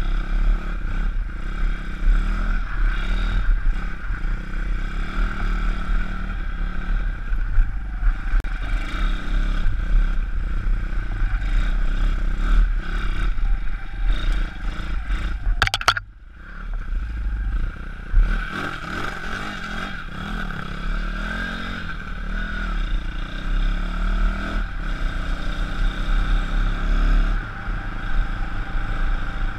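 Single-cylinder four-stroke YX 160cc pit bike engine running under way, its pitch rising and falling as the throttle opens and closes, with rattling from the bike over rough ground. The engine is freshly fitted and being run in, so it is kept to modest revs. A sharp click about halfway is followed by a brief dip in the sound.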